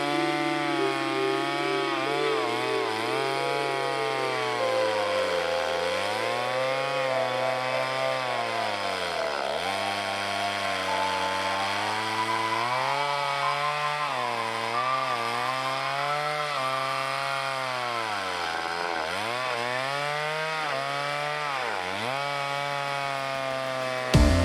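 Stihl 024 two-stroke chainsaw running at full throttle while ripping a log lengthwise in a simple chainsaw mill. Its engine speed sags under the load of the cut and picks back up, again and again.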